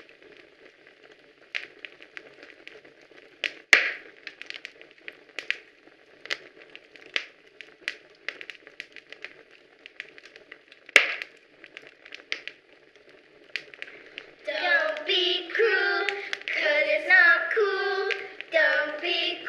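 Sparse, scattered clicks and taps, with two sharp louder knocks about four and eleven seconds in; from about fourteen seconds on, children's voices singing.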